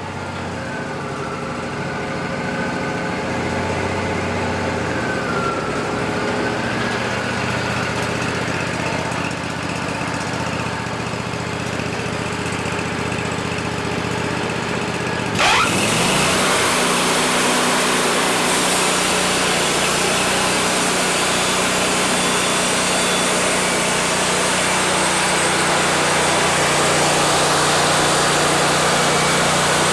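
Wood-Mizer LT40 band sawmill running: the engine idles with a wavering whine, then about halfway through it revs up quickly and turns into a louder, steady noise as the band blade cuts through the cedar log.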